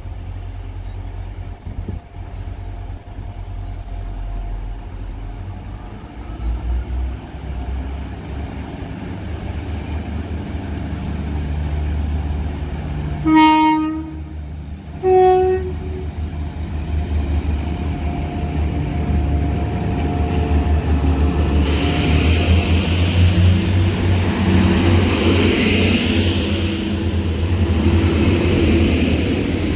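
Class 175 diesel multiple unit approaching with its diesel engines rumbling. Midway it sounds its two-tone horn: a short low note, then a short higher note. As it draws alongside, the wheel and engine noise grows louder and a high whine rises in pitch.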